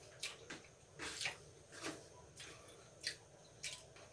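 Faint eating sounds: fingers squishing and mixing rice on a plate and wet mouth noises of chewing, in short irregular clicks and squelches about twice a second.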